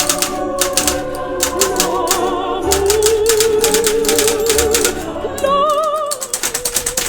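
Smith Corona Electra XT electric typewriter typing a test page in quick runs of keystrokes, with short pauses, over background music with a singing voice.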